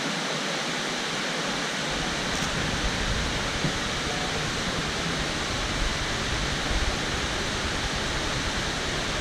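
A waterfall's steady rush of falling water, an even unbroken noise. A low rumble joins in about two seconds in.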